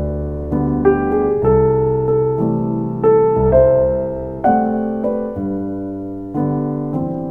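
Background piano music: slow, soft notes and chords, a new one about every second.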